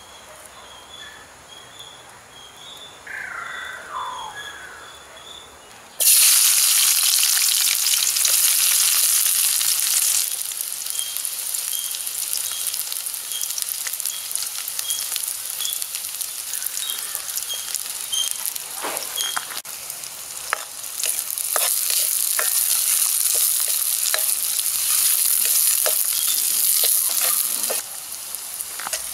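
Sliced onions and curry leaves sizzling in hot oil in an aluminium wok, the hiss starting suddenly about six seconds in as they hit the oil, then carrying on with scraping clicks of a ladle stirring them.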